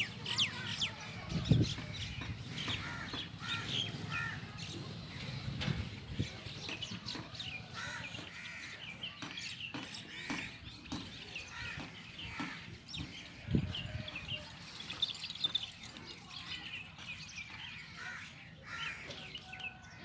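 Birds chirping and calling throughout, with crow-like cawing among them. Two low thumps stand out, one about a second and a half in and one near the middle.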